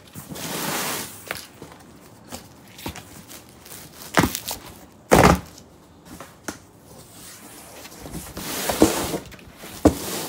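A large cardboard shipping box being handled and opened by hand: cardboard scraping and rustling, with several hard thuds, the loudest two about four and five seconds in, and a sharp click near the end.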